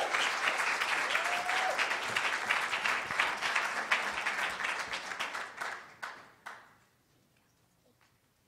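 Audience applauding, the clapping thinning out and dying away about six seconds in.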